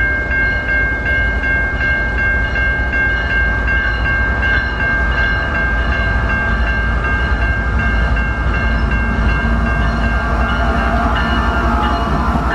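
Canadian National diesel locomotive 3023 approaching with a freight train, its low engine rumble growing and filling out with wheel and rail noise as it passes close near the end. A grade-crossing warning bell rings steadily over it at about two strokes a second.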